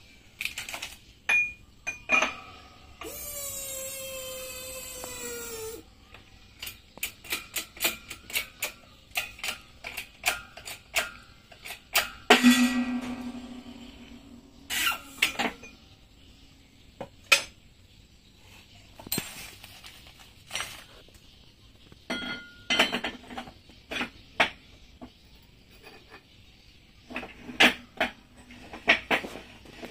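Steel outboard-motor parts handled and tapped on a metal workbench: scattered clinks and knocks, with one loud ringing clang about twelve seconds in. About three seconds in, a long pitched, slightly falling sound lasts nearly three seconds.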